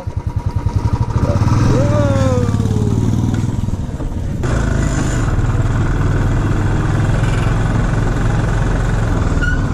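Motorcycle engine, thumping at low revs at first, then running steadily under way from about four seconds in.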